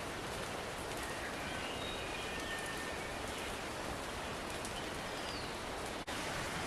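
Steady, even hiss of wet forest ambience, water-like in character, with a few faint, short, high bird calls over it; the sound drops out for an instant about six seconds in.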